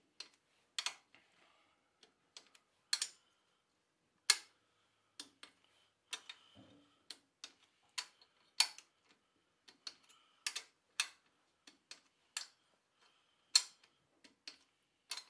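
Light metallic clicks and taps from hand tools working on a cast-iron engine, coming irregularly one or two at a time.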